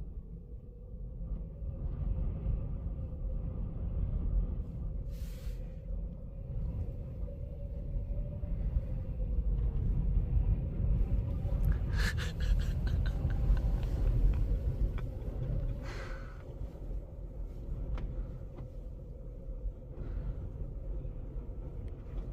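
In-cabin road and engine noise of a 1999 Isuzu Trooper driving: a steady low rumble with a faint hum, a short run of clicking rattles about twelve seconds in, and brief hissing swells around five and sixteen seconds in.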